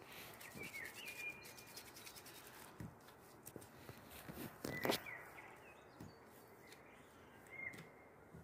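Soft rubbing of gloved palms rolling a lump of pastry dough into a rope on a stone countertop, with a few light taps and a sharper click about midway. A few short, faint high chirps come and go over it.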